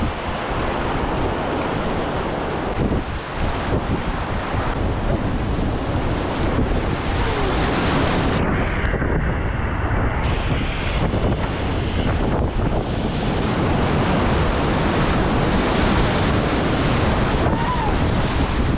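Loud, steady rush of high-water river rapids heard close up from a raft, with wind buffeting the microphone. About halfway through, the hiss turns duller for a few seconds, then comes back.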